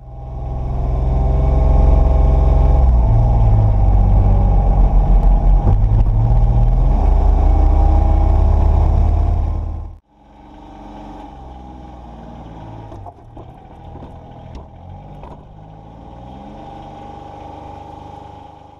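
Polaris Brutus HD UTV's diesel engine running steadily, loud in the cab for about ten seconds. After a sudden break the same engine is heard more quietly, with a few light clanks while the front lift arm holds a trash can.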